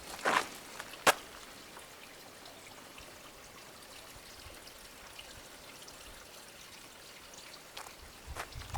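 Water trickling and pouring steadily, with a knock and then a sharp click in the first second or so.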